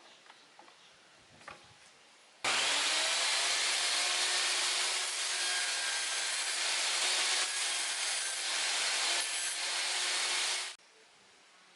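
Lotus LTST1800X table saw cutting through wood, a loud, steady saw noise that starts suddenly a couple of seconds in and cuts off abruptly near the end.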